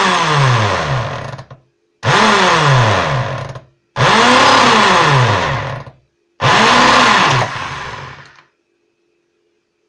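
Electric drill drilling a hole through a metal strip, run in four bursts of a couple of seconds each, the motor speeding up and then winding down each time the trigger is released.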